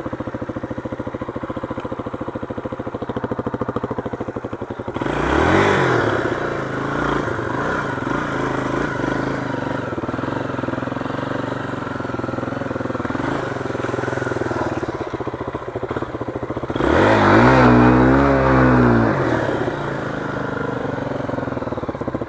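Honda XR250 Tornado's single-cylinder four-stroke engine running at low speed on a dirt trail. It is revved up twice, about five seconds in and again around seventeen seconds in, its pitch rising and falling each time.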